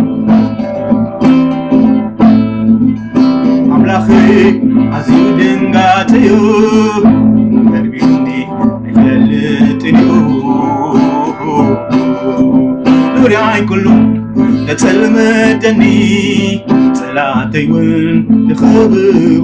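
Acoustic guitar strummed and plucked as accompaniment to a man singing a Tigrigna gospel song (mezmur), with the voice coming and going over the steady guitar.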